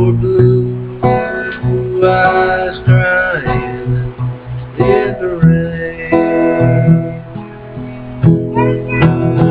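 Acoustic guitar strummed and picked, chords ringing out in the closing bars of a song.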